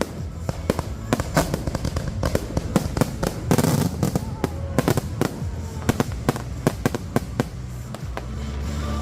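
Fireworks finale: a dense barrage of aerial shell bangs, several a second, with a burst of crackling about three and a half seconds in.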